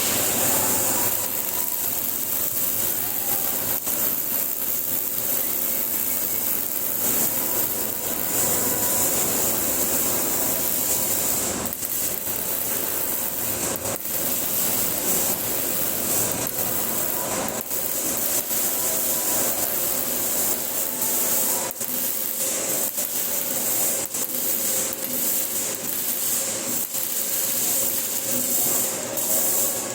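MIG welder arc crackling steadily: a continuous hiss thick with small pops and crackles.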